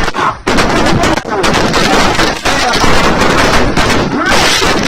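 Fireworks and firecrackers going off: a dense, loud string of rapid overlapping bangs and crackles, with a brief lull shortly after the start.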